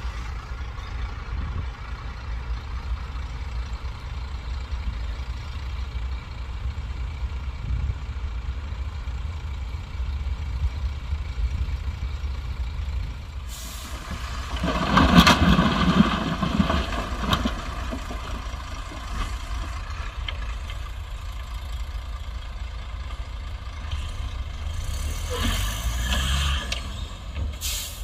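Heavy diesel machinery running with a steady low rumble. A little past halfway a loud rush of noise lasts a few seconds, and a shorter hissing burst comes near the end.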